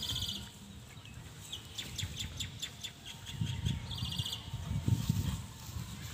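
Small birds chirping: a quick bright trill at the start and another about four seconds in, with a rapid run of chirps in between. Low muffled bursts of scuffling come from two puppies wrestling on the ground.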